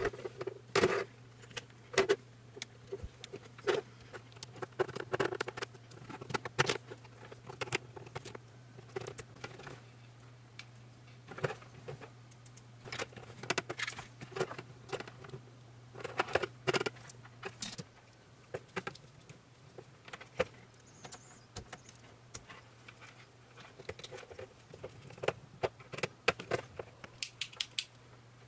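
Scattered clicks, taps and rustles of hands handling small plastic electronic parts and wires: a ribbon cable connector being plugged into a controller board and a small panel indicator lamp being turned in the fingers. A low steady hum lies underneath.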